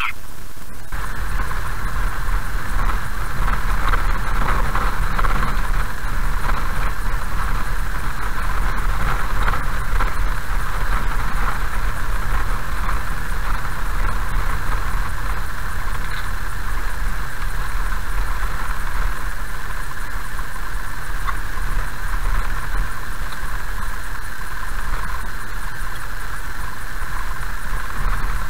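Car driving slowly on a gravel road, heard from inside the cabin: a steady engine and tyre rumble with a constant higher-pitched hum over it.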